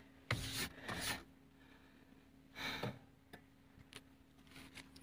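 Mostly quiet, with three soft, brief rustles close to the microphone in the first three seconds over a faint steady hum.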